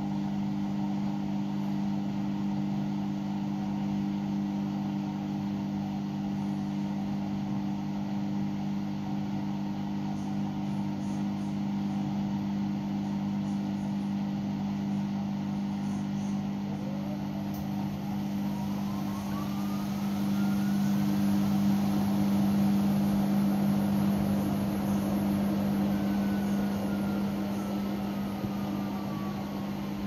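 Hoover H-Wash 300 Plus inverter washing machine running with a steady motor hum; about halfway through a whine rises as the drum speeds up for a spin, holds, then falls away again near the end. With the drum full of suds, this is the suds lock cutting the spin short.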